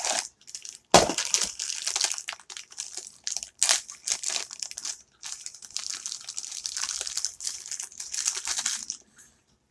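Crinkly blind-box packaging being torn open and crumpled by hand, an irregular rustling with a sharp crack about a second in.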